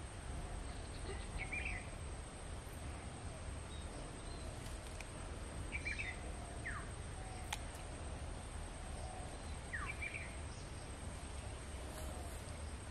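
Quiet outdoor ambience by a pond: a steady low rumble and hiss with a few scattered short bird chirps and quick downward calls, and one sharp click about halfway through.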